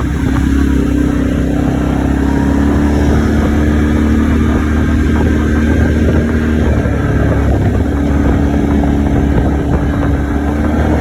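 ATV engine running steadily while riding. The engine note dips briefly about seven seconds in, then comes back up.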